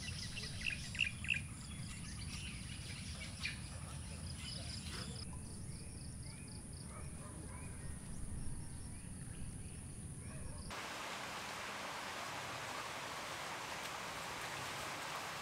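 Outdoor ambience of birds chirping over a steady high-pitched insect drone and a low wind rumble. About two-thirds of the way through it cuts abruptly to a steady, even hiss.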